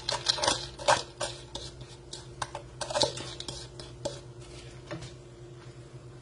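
Frozen corn kernels spilling from a bowl into a stainless steel pot, with a wooden spoon knocking and scraping against the bowl and pot. The clatter is dense at first and thins out after about three and a half seconds.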